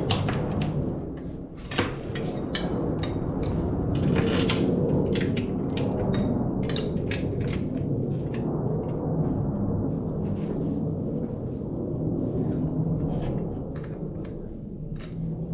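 Workshop handling noise: irregular clicks and knocks over a steady low hum.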